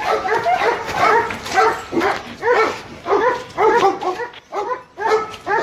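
German Shepherd barking repeatedly, about two barks a second.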